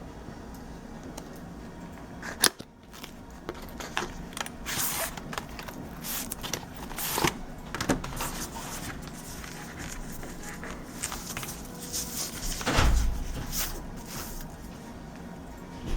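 Packaging being handled by hand: scattered clicks, taps and short rustles, with a sharp click about two and a half seconds in and a dull thump about three-quarters of the way through.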